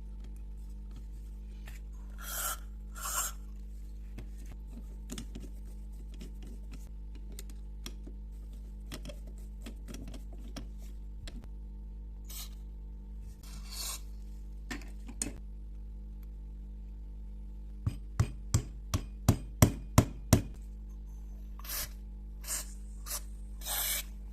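Hand-tool work on metal carburetor parts: a few short scraping strokes and, past the middle, a quick run of about eight sharp clicks, over a steady low hum.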